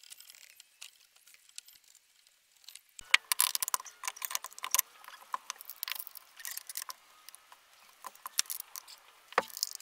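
Near silence for about three seconds, then faint, irregular light clicks and rustles, like small objects being handled.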